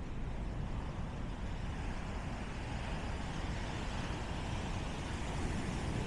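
Surf breaking and washing up a black-sand and pebble shore: a steady rush that swells through the middle, over a low rumble.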